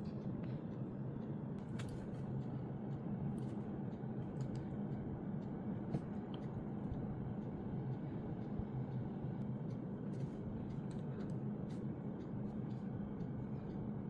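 Steady low background hum, with scattered faint clicks and taps of small objects being handled.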